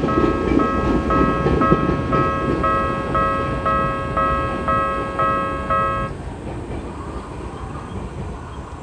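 Tokyu-type electronic level-crossing warning bell ringing about twice a second, then cutting off about six seconds in as the crossing clears. Underneath, the rumble of a passing train fades away.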